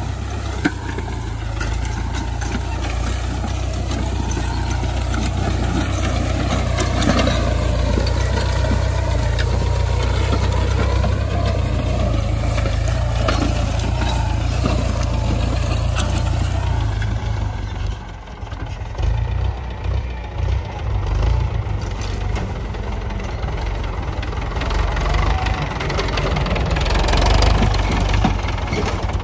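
Ford farm tractor's diesel engine running under load as it pulls a disc plough through soil, its pitch rising and falling.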